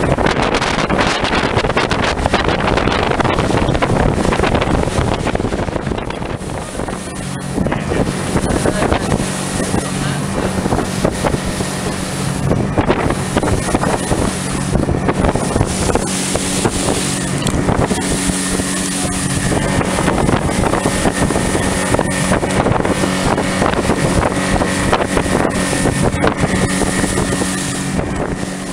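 Outboard motor of a Zodiac inflatable boat running steadily under way, with wind buffeting the microphone. The wind noise is heaviest for the first several seconds, then the motor's steady hum comes through.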